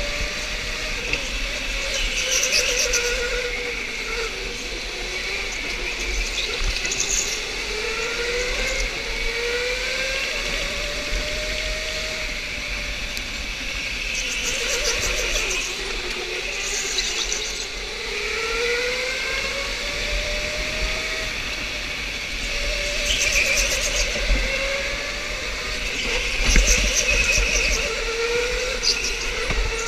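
Electric go-kart motor whining, its pitch rising slowly as the kart speeds up out of the corners and falling back, three or four times, over steady rolling and wind noise.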